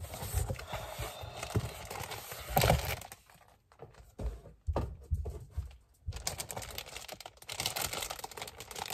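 Cardboard box being opened and handled, with rustling flaps and a louder bump about two and a half seconds in, then the clear plastic bag around a new leather baseball glove crinkling steadily as it is lifted out and handled over the last few seconds.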